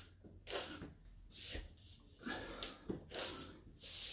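A man breathing hard through knee press-ups, with short breaths out coming about one a second.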